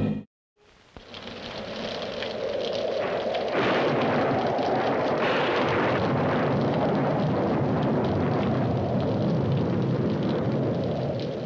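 A deep, steady roaring rumble that fades in after a brief silence about a second in and holds, with a few short, sharper surges.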